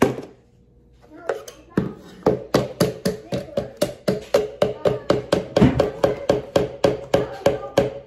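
A spatula knocking and scraping inside a plastic Ninja blender jar, in quick regular strokes about three a second, as thick blended mixture is scraped out. One sharp knock comes right at the start.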